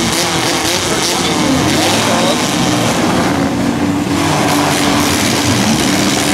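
Several demolition derby mini trucks' engines running hard at once, their pitches rising and falling as they push against each other in the dirt, with wheels spinning.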